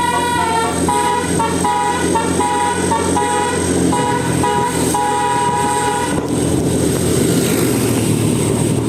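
Bus telolet horn (Basuri multi-tone musical horn) playing a quick tune of short stepped notes, then cutting off about six seconds in, leaving the bus engine running with a steady rumble.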